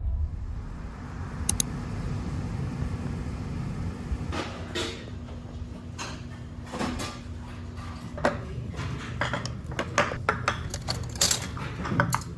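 Camping gear being handled: scattered clinks and knocks, coming more thickly near the end, over a steady low rumble.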